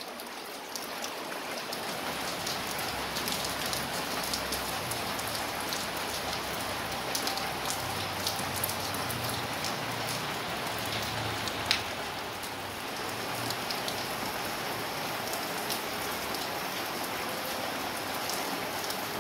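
Steady rain falling: an even hiss with scattered drop ticks and one sharper click a little past the middle.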